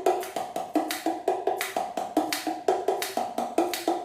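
Hollow, wood-block-like percussion made from natural materials, struck in a steady rhythm of about four strikes a second. The strikes alternate between a higher and a lower knocking note.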